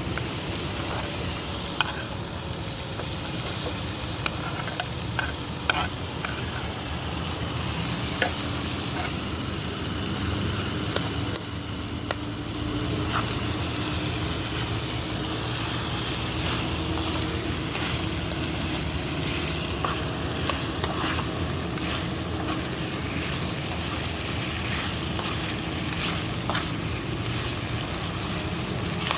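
Food frying and sizzling in a pan, a steady hiss with scattered short clicks and taps.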